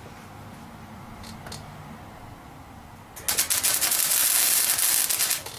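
Welder laying a short tack weld on sheet-steel body panel: a loud, dense crackle that starts suddenly about three seconds in and cuts off about two seconds later, after a couple of faint clicks.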